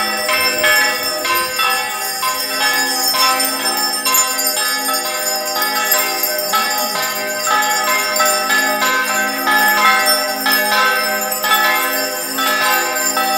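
Bells ringing continuously in a quick, even rhythm of strokes, many ringing tones sounding together.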